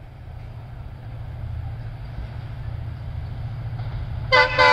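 WDP4D diesel locomotive approaching at speed: a low rumble that grows steadily louder, then the locomotive's horn sounding near the end, a short blast followed at once by a second one.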